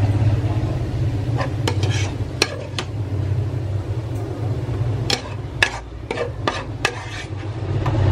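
A spatula scraping fried tofu, hotdog and onion out of a pan onto a plate, with a string of sharp clicks and taps against the plate. A steady low hum runs underneath.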